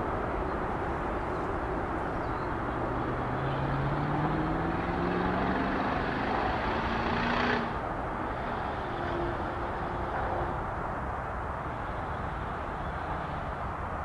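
Distant Boeing 787 jet engines at climb power, a steady rumbling roar. Over it a second engine note rises in pitch for several seconds and stops abruptly about halfway through, as from a nearby road vehicle accelerating.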